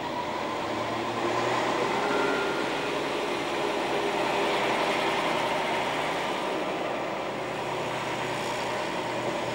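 Diesel railcar pulling away from the platform and rolling past: engine running under load with wheel and rail noise, growing louder over the first couple of seconds and then holding steady.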